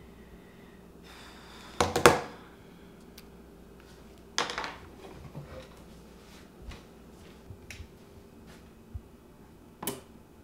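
Household handling sounds as a framed whiteboard is picked up off a wooden table and hung on a wall: a sharp double knock with a clatter about two seconds in, a brief scraping rustle a couple of seconds later, a few light taps, and one sharp click near the end as the frame goes onto its hook.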